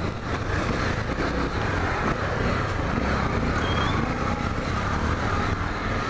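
Honda XRE 300's single-cylinder engine running steadily at low speed while filtering between cars in slow traffic, under an even rush of wind and road noise on the helmet camera's microphone.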